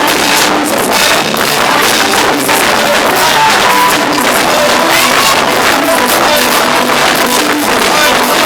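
Loud band music with a drum kit and guitar, played steadily throughout.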